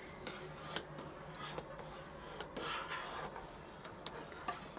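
Metal spoon stirring and scraping inside a steel pot of hot milk and ground rice, with a few light clicks of metal on metal.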